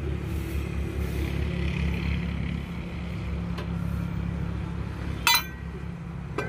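Steady low engine rumble, with one sharp ringing metallic clink about five seconds in as the hydraulic filter element is handled.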